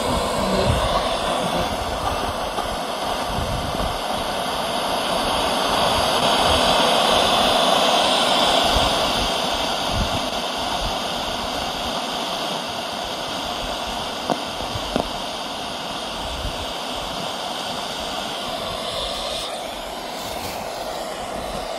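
Radio of a National FM45 radio-cassette recorder playing a steady rush of static with no clear station coming through; the reception is poor because the set's antenna is missing. Two short clicks come about 14 seconds in, and the noise changes in tone near the end.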